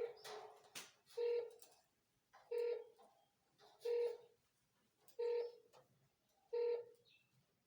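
Satellite finder meter beeping: a short, even tone repeated about every 1.3 seconds, the tracker's signal beep as the dish is turned toward the satellite.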